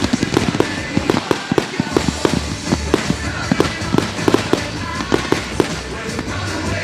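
Fireworks going off in a rapid string of sharp bangs and pops, several a second, over background music.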